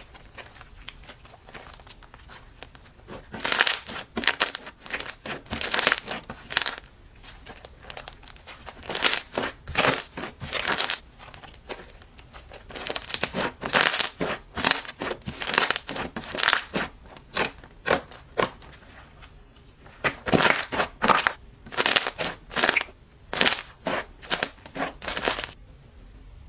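Slime being squeezed and pressed by hand, giving sharp crackling, popping squelches in four runs of quick presses with short pauses between.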